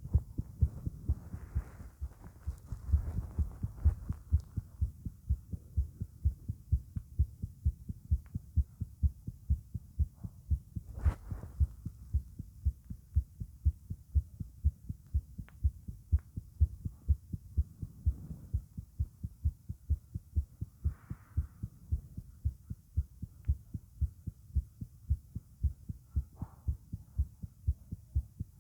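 Human heartbeat, recorded close against the chest: a steady, regular run of low thumps with occasional faint rustles.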